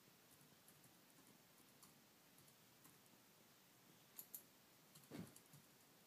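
Near silence with faint scattered clicks, two sharper clicks in quick succession about four seconds in, and a brief low sound about a second later.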